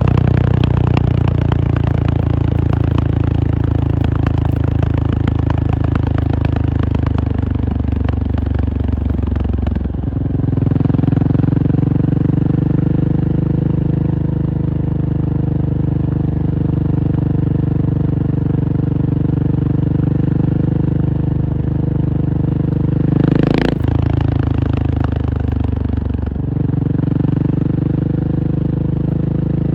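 KTM 690 SMC R's single-cylinder engine running steadily under way. Its note steps to a new level about a third of the way in and again near the end, with one brief sharp crack about two-thirds through.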